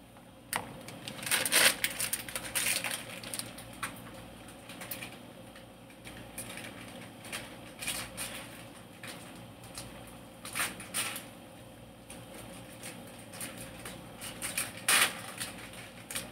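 Irregular knocks, clicks and rustling from things being handled and set down, with the loudest clusters about a second or two in, around ten seconds in, and near the end.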